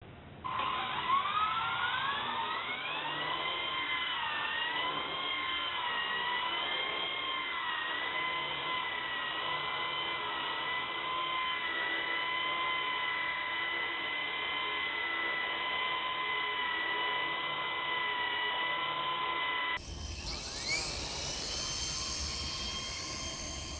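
Small electric RC helicopter motor and rotor whine. It rises in pitch as the rotor spools up, then holds steady in flight. Near the end it breaks off and another spool-up whine rises over low wind rumble.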